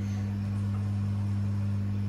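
Samsung WF80F5E2W4W front-loading washing machine running a service-mode spin test, its drum of wet laundry turning slowly with a steady low hum.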